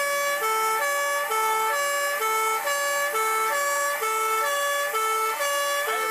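Dutch fire engine two-tone siren, alternating evenly between a higher and a lower tone, each held about half a second.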